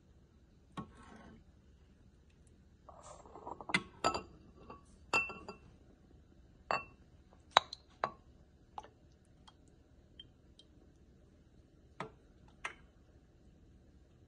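A metal ladle clinking against a porcelain soup tureen and bowl while soup is ladled out: a dozen or so sharp, ringing clinks, thickest in the first half, with a short splash of poured soup about three seconds in.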